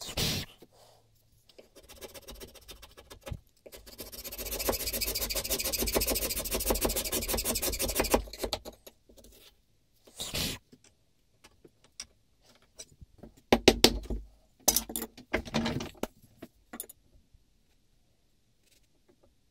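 Hand tool scraping and paring beech inside the throat mortise of a wooden plane body. A run of rapid scraping strokes lasts about four seconds, with shorter scrapes and knocks before and after it.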